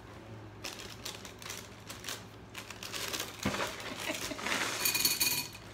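A cardboard cereal box being handled and its plastic inner bag crinkled open, the crinkling getting louder in the second half, with a single thump about three and a half seconds in.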